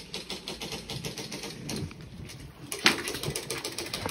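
A rapid run of sharp clicks, with a louder sharp hit about three seconds in.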